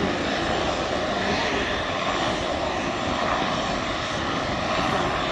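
Air Tractor AT-802 Fire Boss's single Pratt & Whitney PT6A turboprop engine running steadily as the floatplane taxis and turns on the ground, propeller spinning.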